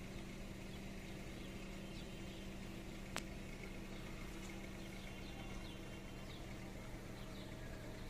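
Faint outdoor ambience: a steady low hum with faint bird chirps, and a single sharp click about three seconds in.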